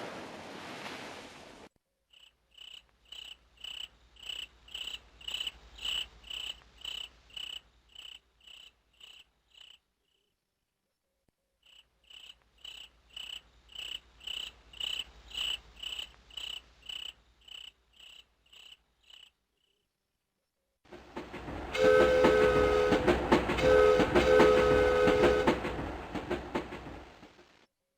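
Synthesized nature-sound ringtones from a Motorola MS280 phone's Yamaha MA-5 sound chip, heard through the phone's speaker. A surf sound dies away at the start, then a high cricket chirping about twice a second plays twice with a gap between, and near the end a train rumbles past with its horn sounding twice.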